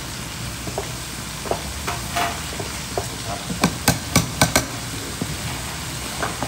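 Utensils clinking and knocking against dishes as food is served: scattered light clicks, then a quick run of about five sharp knocks a little over three and a half seconds in, over a steady low hum.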